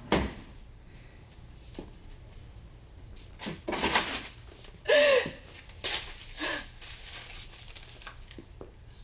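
A person's heavy breaths and sniffs, with a short voiced gasp about five seconds in, over a low steady room hum.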